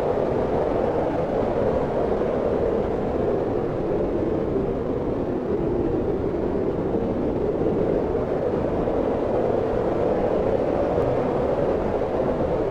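Wind blowing steadily, a low rushing noise that swells and eases slightly.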